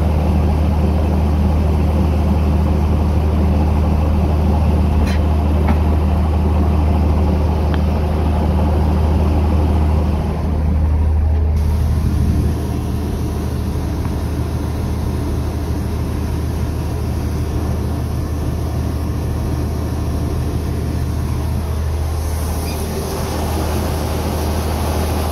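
New Idea Uni-System 801 combine power unit running steadily under load while its unloading auger pours shelled corn into a gravity wagon. A steady low engine hum with a grainy hiss over it, dropping a little in level about halfway through.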